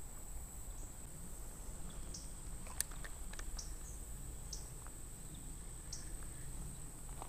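Steady high-pitched insect trill from the creekside woods, with scattered short bird chirps and a single sharp click about three seconds in.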